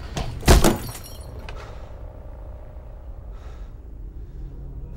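A loud smash of breaking glass about half a second in, with a brief high tinkling after it and a couple of smaller knocks around it.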